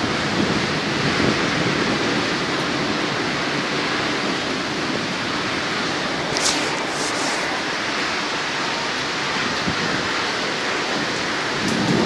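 Heavy thunderstorm rain pouring down, an even steady hiss, with a brief crackle about halfway through.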